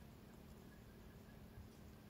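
Near silence: faint background noise with a thin, steady hum.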